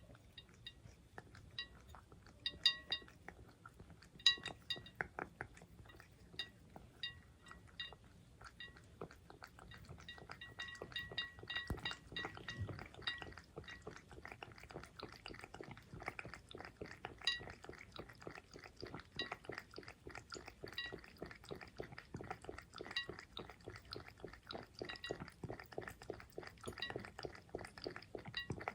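Cat lapping water with its tongue: a quick, even run of small wet laps, with a few bright clinks in the first half.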